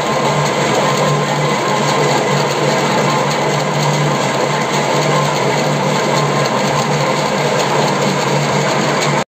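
Metal lathe running steadily with a low hum, spinning a hydraulic cylinder shaft as its damaged threaded end is turned down to size. The sound cuts off suddenly at the very end.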